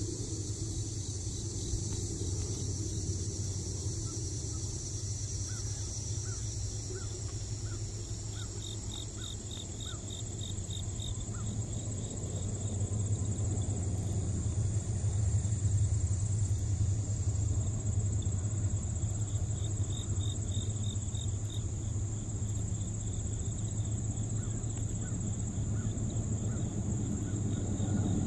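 Crickets or katydids chirping in even, rhythmic pulses over a steady low rumble that grows louder about halfway through.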